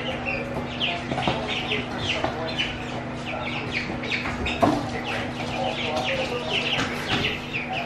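Young pullets peeping over and over, many short high calls overlapping, over a steady low hum, with a single knock about halfway through.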